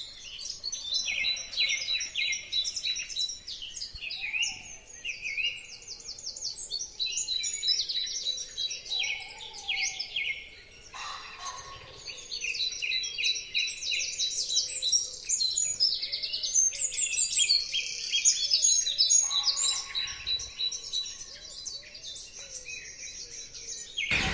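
Many birds chirping and singing at once in a dense chorus of quick, high chirps and trills, with a thin steady high note running under them.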